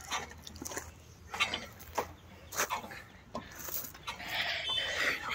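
Metal pivot of an outdoor gym's rotating handle station squeaking as the handles are swung round: a series of short squeaks about half a second apart, then a longer, scratchier squeal near the end.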